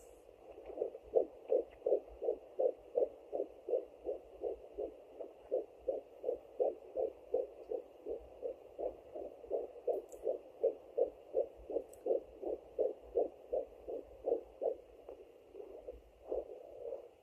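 Fetal heartbeat picked up by a Sonoline B pocket fetal Doppler and played through its speaker: a fast, even pulse of about two and a half beats a second, over a faint steady tone. The beats fade out near the end.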